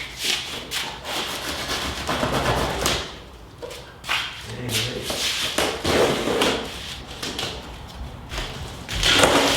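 Packaging being torn and pulled off a new rolling tool box, with irregular rustling, scraping and knocks and a louder burst near the end.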